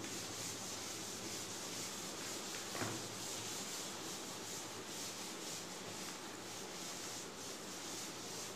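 Chalkboard eraser rubbing across a chalkboard, wiping off chalk writing in repeated strokes, with one light knock about three seconds in.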